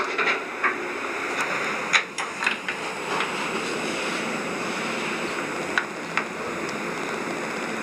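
Steady rushing noise inside a Schindler hydraulic elevator cab in travel, with a few light clicks, most of them about two seconds in.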